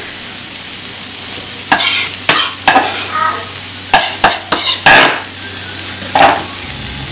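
Diced red onion and garlic sizzling in hot oil in a nonstick frying pan, a steady hiss. Several brief sharp sounds break in over it, a cluster about 2 to 3 seconds in, more around 4 to 5 seconds, and one near 6 seconds.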